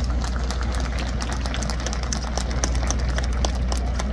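Spectators clapping in scattered, irregular claps, several a second, over a steady low rumble of wind on the microphone.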